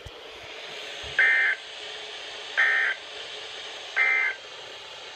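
Emergency Alert System end-of-message code (the SAME 'NNNN' data burst) from a NOAA Weather Radio broadcast: three short, identical buzzy data bursts about 1.4 seconds apart, marking the end of the weekly test. Steady radio hiss runs underneath.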